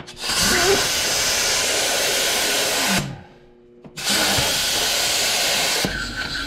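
Compressed air hissing out of an air hose's quick-connect coupling while it is being pushed onto a fitting: two steady blasts, the first about three seconds long, then a second's pause, then a second of about two seconds, each starting and stopping abruptly. The hiss is air escaping because the coupling is not yet seated.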